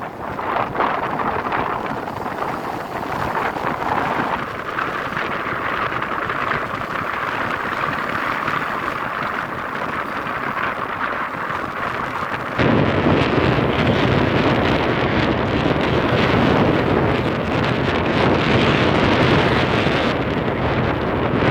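Wind buffeting the microphone, a steady rough rush. It jumps abruptly louder and deeper about two-thirds of the way through.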